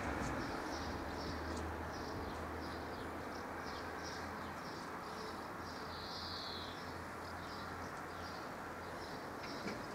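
Small birds chirping, short high calls coming two to three a second, over a faint low hum of traffic.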